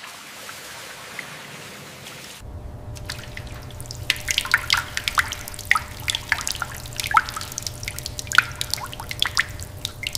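A faint steady hiss of spraying water. From about two and a half seconds in, water trickles and drips over a rusted steel hull plate, with many quick irregular drips and splashes over a low hum.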